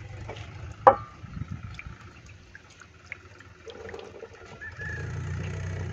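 Water poured from a plastic bottle splashing onto a corrugated cement sheet and running down its channel, growing stronger a bit past halfway. A sharp knock comes about a second in.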